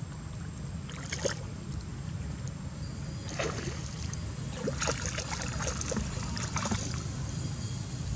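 Water splashing and lapping in several short bursts as a swimming macaque with an infant on its back moves through a pond, over a steady low rumble.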